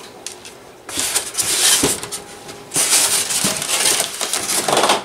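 Styrofoam packing being handled and pulled apart, with rustling, scraping and crinkling. It comes in two bursts: one about a second in, and a longer one from about three seconds to near the end.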